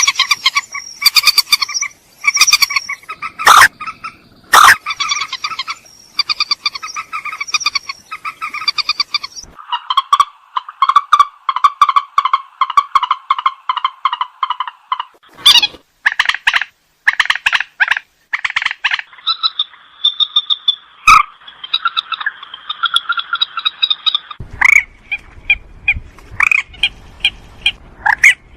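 White-breasted waterhen calling: fast runs of repeated croaking notes in several stretches whose rhythm and pitch change abruptly, with sharp clicks between them.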